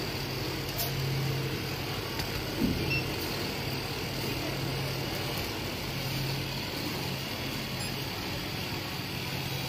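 Supermarket background noise: a steady low hum, with a brief faint voice about two and a half seconds in.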